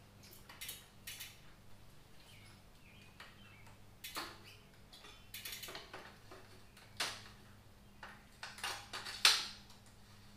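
Scattered metallic clicks, clinks and short rattles as a bicycle's rear wheel with its new cassette is seated in the frame and the hub and drivetrain are handled; a sharper clank about nine seconds in is the loudest. A steady low hum runs underneath.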